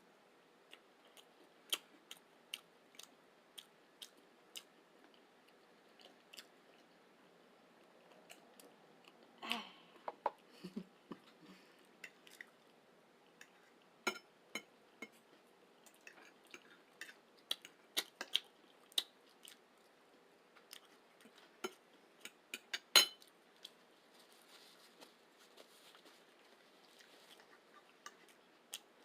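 Close-miked eating sounds: chewing with frequent short wet mouth clicks and smacks scattered throughout. About a third of the way in comes a short low voiced sound, and about three-quarters through a single sharp click is the loudest sound.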